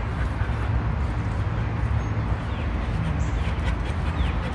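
Steady low outdoor rumble, with a few faint bird chirps in the second half.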